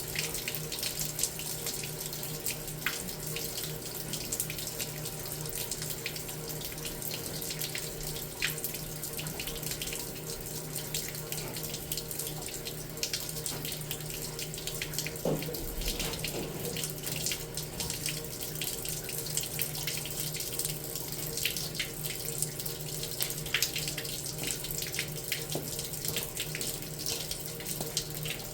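Water running steadily out of an opened boiler as it drains, the water let out by a leaking boiler tube. A steady low hum runs beneath it, and there is a single knock about halfway through.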